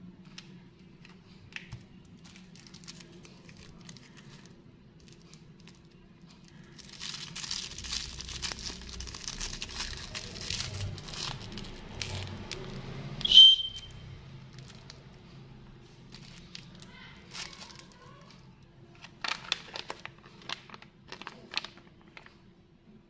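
Plastic candy wrappers and a gum packet crinkling as they are handled: sparse at first, a dense stretch of crinkling in the middle, then scattered crinkles near the end. One short, high squeak just after the dense stretch is the loudest sound.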